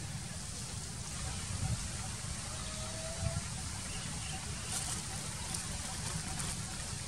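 Steady outdoor background noise with a low rumble, and a few faint clicks past the middle.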